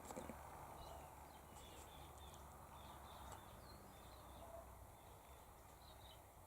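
Near silence, with faint, scattered bird chirps, several in quick clusters, over a low, steady background hum.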